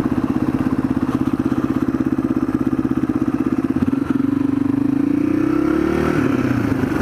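Yamaha XT225's single-cylinder four-stroke engine running under way. Its pitch climbs from about four seconds in, then drops back just after six.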